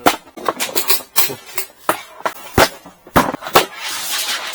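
Irregular series of sharp knocks and clacks, about a dozen over a few seconds, as hard objects are handled and set against each other, with a rustling hiss near the end.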